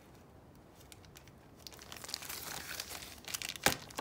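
Clear plastic bag around a hard plastic CGC comic slab crinkling as the slab is handled and turned over, starting about a second and a half in, with a sharp click near the end.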